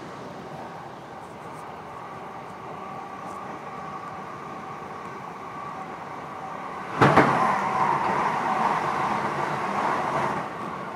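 Running noise of a commuter train heard from inside the carriage: a steady rumble of wheels on the rails. About seven seconds in, a sudden clunk brings a much louder rush of noise that lasts about three seconds and then drops away.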